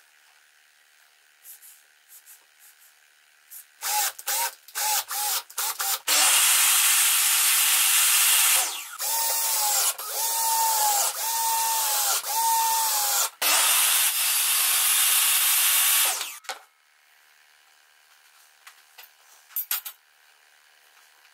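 Cordless drill/driver driving screws into a wooden fence board: a few short trigger blips, then long runs of motor whine whose pitch sags and recovers several times as the screws bite, with brief pauses between runs. The drill stops well before the end, leaving a few faint taps.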